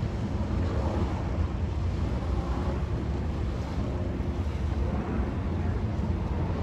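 Steady wind buffeting the microphone: a continuous low rumble with a lighter hiss above it, no distinct events.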